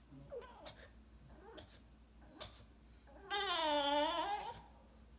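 English bulldog whining: a couple of faint short whimpers, then about three seconds in a loud, drawn-out whine of over a second that dips in pitch and rises again. An attention-seeking whine from a dog pouting for play.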